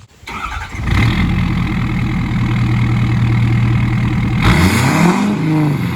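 Ford 6.7 Power Stroke V8 turbo-diesel, deleted and tuned, revved and held at a steady high rpm for a few seconds, loud through the exhaust. Near the end the revs change with a burst of rushing noise.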